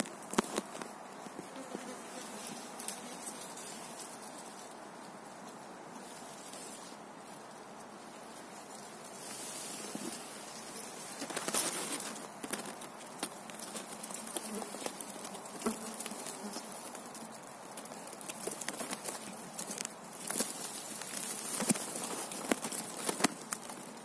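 Blueberry shrub leaves and dry grass stems rustling and crackling close by as they are brushed and handled. The rustling comes in uneven bursts of short crackles, loudest about halfway through and again near the end.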